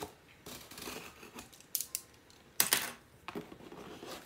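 A cardboard shipping box being handled and opened: rustling and scraping with a few sharp clicks, and a louder scrape about two and a half seconds in.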